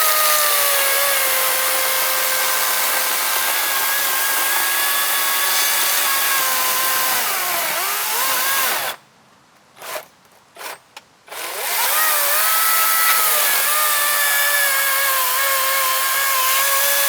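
Kobalt 24-volt cordless electric chainsaw running and cutting wood: a steady high motor whine that sags in pitch as the chain loads up in the cut about eight seconds in. It stops, gives three quick blips of the trigger, then runs again steadily.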